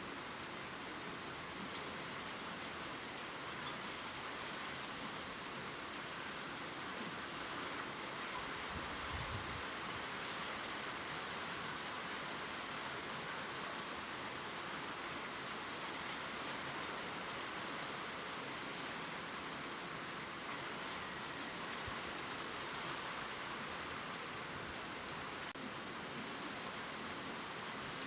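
Gentle rain falling steadily on leaves: an even hiss with faint, scattered drop ticks.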